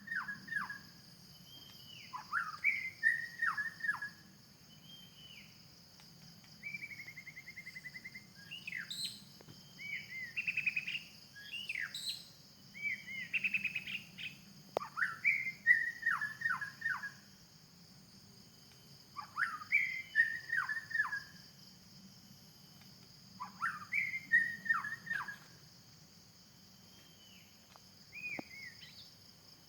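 White-rumped shama singing: bursts of clear, varied whistled phrases with quick up-and-down pitch glides, repeated every few seconds with short pauses between. A steady high insect drone runs underneath.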